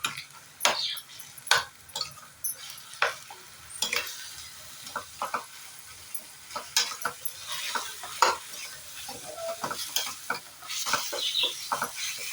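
A utensil stirring and scraping ground mutton, onion and ginger-garlic paste around a pan, with the mixture sizzling in hot oil. The knocks and scrapes come at an irregular pace throughout.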